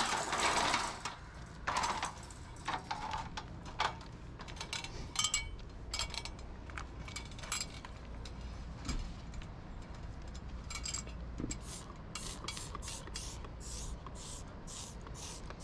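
Trigger spray bottle of waterless bug-and-sap cleaner pumped over and over onto an RV's painted front cap: a quick run of short sprays, about two or three a second, through the last five seconds. Before that come scattered small clicks and rubbing.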